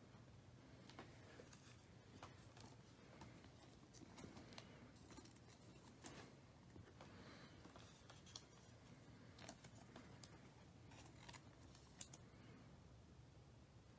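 Faint, irregular clicks and scrapes of a stack of Panini Prizm basketball cards being handled, each card slid off the front of the stack and flipped to the back.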